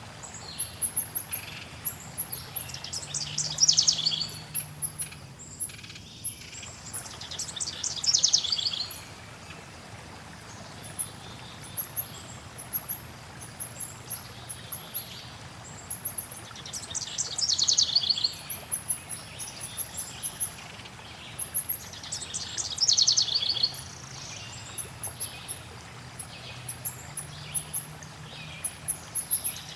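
Forest birdsong: loud, fast trilled song phrases that fall in pitch recur every few seconds, over continual thin, high chirping from other birds. Beneath them runs a soft steady hiss of flowing water.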